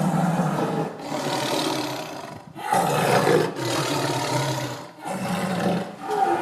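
Tiger roaring in a string of loud, rough bouts, each about a second or so long, with short breaks between.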